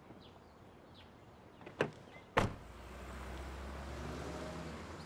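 A car door shuts with a solid thud about two and a half seconds in, just after a sharper click, and then the SUV pulls away with a low engine and tyre rumble that swells over the next second or two.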